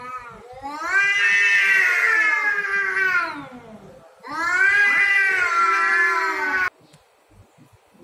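Domestic cats caterwauling in a territorial standoff: long, wavering, rising-and-falling yowls. One lasts about three seconds from about a second in, and another starts about four seconds in and cuts off abruptly near the end.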